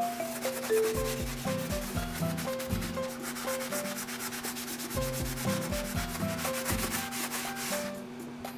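Rapid scrubbing strokes on a washing-machine drain pan, over light background music. The scrubbing stops near the end.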